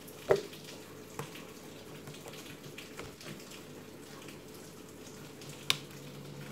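Light clicks and taps of a smartphone's plastic frame being handled and pressed. There is a louder knock shortly after the start and a sharp click near the end, over a faint steady hiss.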